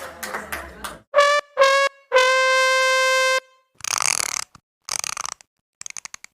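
Comic brass 'fail' sound effect: two short notes and then a long held note, each a little lower than the one before. It is followed by two short hissing bursts and a quick run of clicks.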